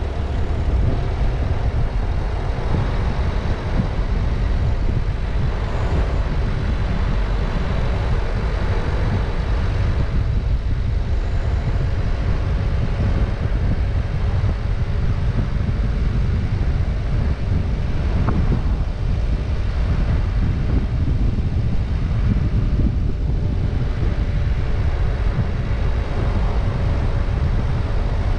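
Car driving on city streets: a steady low rumble of engine and tyre noise on the road.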